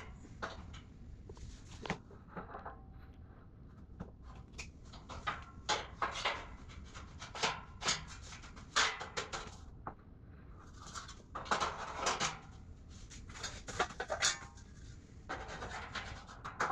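Irregular knocks, clanks and scrapes from handling and fitting the steel beams and parts of a welded steel shelving unit during assembly, with short bursts of sliding and scraping between the knocks.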